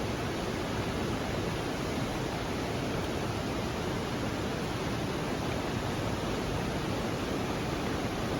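A steady, even rushing noise with no distinct clicks or tones.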